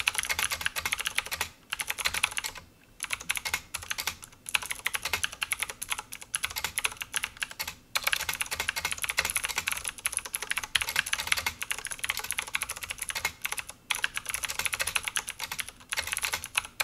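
Fast two-handed typing on a clicky mechanical keyboard with blue switches: a dense run of loud key clicks, broken by a few brief pauses.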